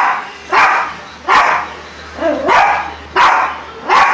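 Small dog barking over and over, a sharp bark about every two-thirds of a second, as it goes after a bee it is trying to catch.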